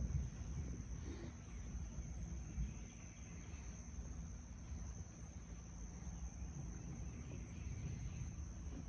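Steady, high-pitched droning of insects, with a faint low rumble underneath.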